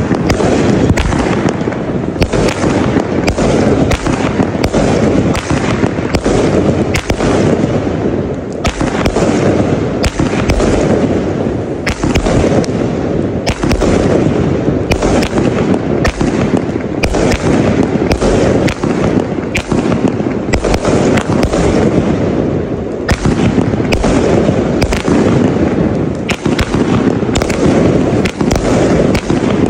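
Tiger Frenzy 320-shot consumer fireworks cake firing shot after shot without pause: a rapid, unbroken string of sharp launch thumps and bursting cracks, several a second.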